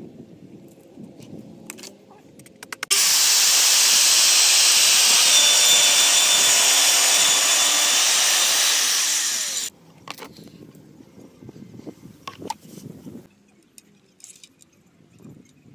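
Corded circular saw on a guide rail cutting through the edge of a tabletop of peach log slices set in epoxy resin: a few clicks, then the saw starts about three seconds in, cuts steadily for about seven seconds and stops abruptly. Faint knocks and handling noises follow.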